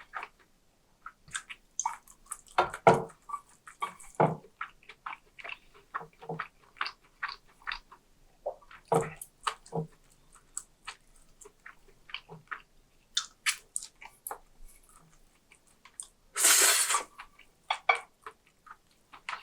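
Close-miked eating sounds: irregular chewing, smacking and wet mouth noises, with one louder noisy rush lasting under a second about three-quarters of the way through.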